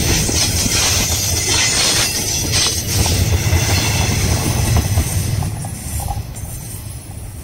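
KTMB passenger coaches rolling past at close range, their wheels rumbling on the rails with a few sharp clacks over rail joints. The sound fades away after the last coach passes, about five seconds in.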